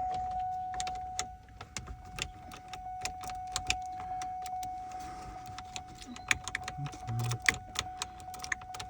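Irregular metallic clicks and taps of a key and ignition lock cylinder being worked and jiggled into a GMC Yukon Denali's steering column, over a steady high electronic warning tone from the truck.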